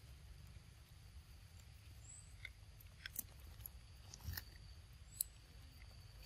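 Faint, sparse wet clicks and smacks of baby macaques biting and chewing mango, a handful of them spread over a few seconds against a low, quiet rumble, with short high chirps twice.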